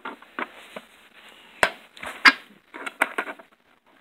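Clatter of hand tools and plastic parts being handled and set down: two louder knocks about one and a half and two and a quarter seconds in, then a quick run of lighter clicks.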